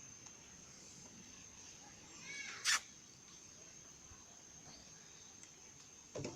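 Monkeys calling in a forest: a short squealing call about two and a half seconds in, followed at once by a single sharp click, the loudest sound, over a steady high-pitched insect whine; a dull thump near the end.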